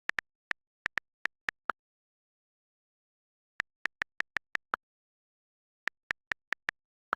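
iPhone on-screen keyboard key clicks as a text is typed: three quick runs of taps separated by pauses of a second or two.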